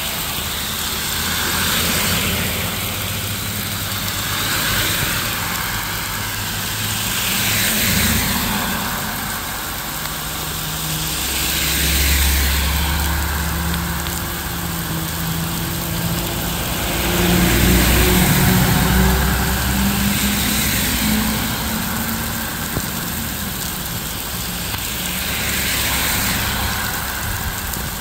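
Cars moving on a rain-wet road: tyre hiss swells and fades every few seconds over the running of an engine. The engine hum is loudest about 12 and 18 seconds in.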